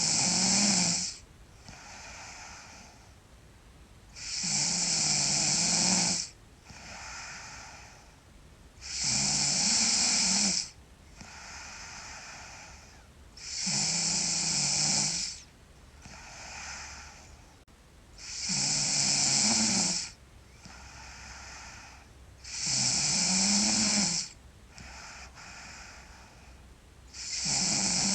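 A sleeping girl snoring loud: a long snore about every four and a half seconds, seven in all, each followed by a softer, shorter breath.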